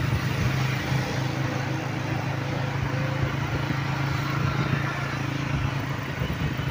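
Motorcycle engine running at a steady speed, heard from the pillion seat, with a constant low hum under the rush of wind and road noise on the microphone.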